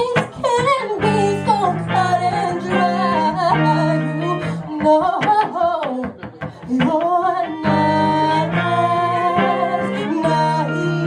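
A singer singing a slow song over guitar accompaniment, with long held, wavering notes.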